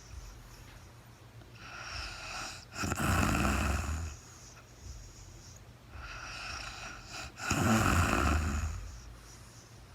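A sleeping woman snoring. Two loud snores come about four and a half seconds apart, each preceded by a softer breath.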